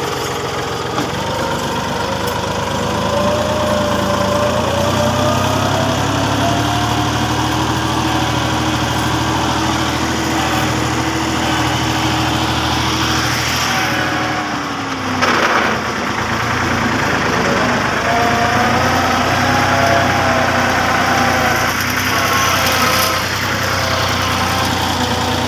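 Massey Ferguson 260 Turbo tractor's four-cylinder diesel engine running steadily while driving. About halfway through its note drops briefly, with a single knock, then picks up again.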